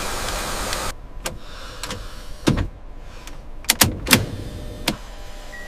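A short burst of rushing noise, then a handful of sharp clicks and thumps from cockpit switches and controls over a steady hum.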